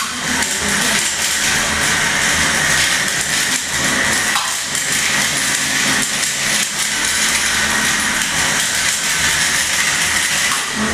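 Small combat robots' electric motors whining steadily as they drive and spin up, with a few short knocks as they collide.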